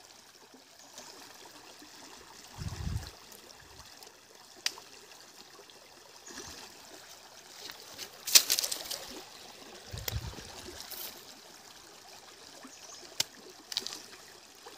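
Shallow stream trickling steadily, with a few sharp cuts as a machete blade slices into a firm green elephant apple (chalta); the loudest cut comes about eight seconds in. Two dull low bumps are also heard, about three and ten seconds in.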